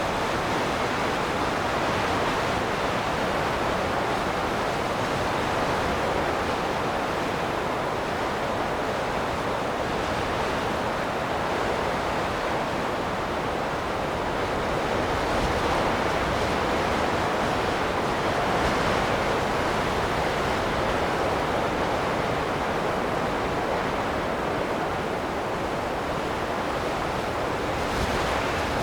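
Wind blowing in gusts: a steady rushing noise that swells a little about halfway through and then eases.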